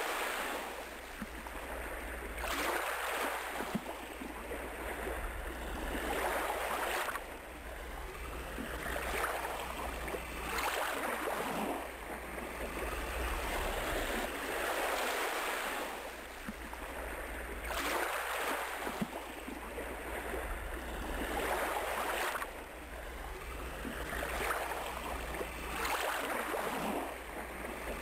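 Ocean surf: waves washing in and drawing back, the hiss of water swelling and fading every few seconds.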